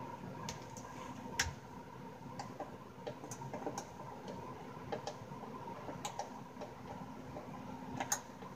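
Irregular sharp clicks and small knocks as a hand screwdriver works screws out of a Yamaha THR10 guitar amp's casing, about ten in all, over a steady faint hum.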